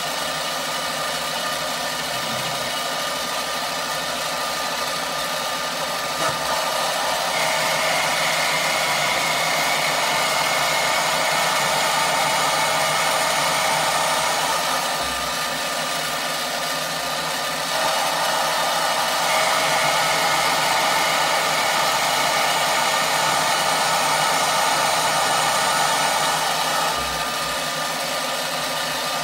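Small bench lathe running steadily while a turning tool cuts an ebonite rod down. Two long cuts, each about eight seconds, make the sound louder and add a steady higher tone before it drops back to the motor's running sound.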